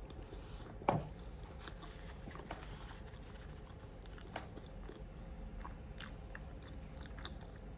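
A person chewing and biting food close to the microphone, with soft wet mouth clicks and an occasional crunch. There is one louder short sound about a second in.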